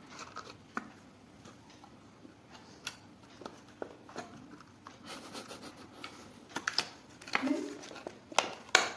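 Hands handling a clear plastic cosmetic box holding a powder puff: faint scattered clicks, taps and scratchy crinkles of the rigid plastic packaging as it is opened, growing busier after about five seconds, with a few sharper clicks near the end.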